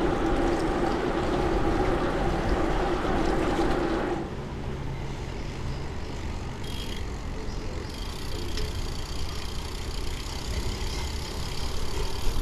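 Bicycle rolling fast downhill on a wet road, with wind rushing over the handlebar camera's microphone, tyre noise and a steady hum. About four seconds in it cuts abruptly to a much quieter low rolling sound of the bike crossing wet paving.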